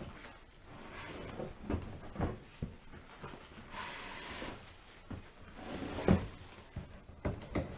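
Plastic wrapping rustling and crinkling as plastic-wrapped treadmill parts are handled in a cardboard shipping box, with a few dull knocks of parts and cardboard, the loudest about six seconds in.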